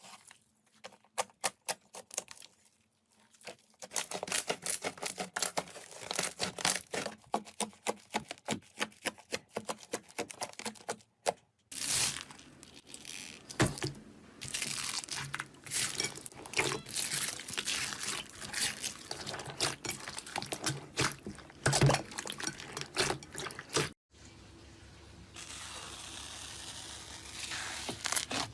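Slime being played with: dense runs of sticky popping and crackling clicks, in several separate clips, with a quieter, smoother squishing stretch near the end.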